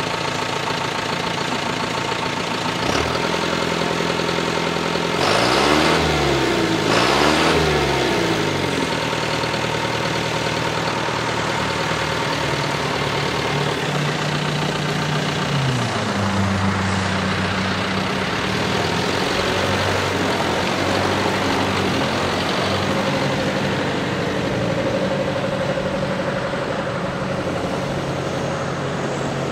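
2007 John Deere 6430 tractor's turbocharged four-cylinder diesel engine running as the tractor drives by. About five and seven seconds in, the engine note twice rises and falls in pitch. About halfway through it steps up to a higher steady pitch.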